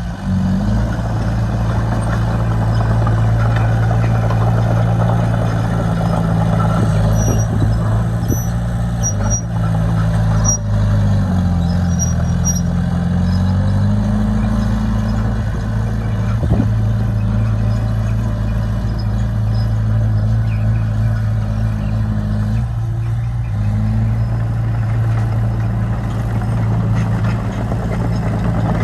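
Heavy diesel engine of earthmoving equipment running steadily, its pitch dipping and rising again a few times.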